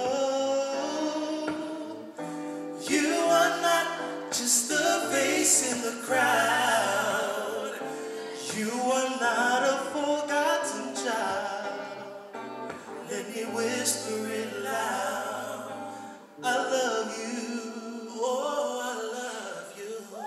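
Two men singing a slow gospel song together, with sustained vocal lines over electric guitar accompaniment.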